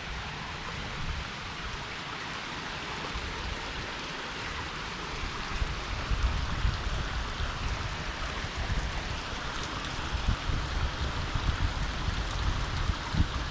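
Steady rain falling, a dense even hiss. From about halfway in, low uneven rumbling and knocks on the microphone join it.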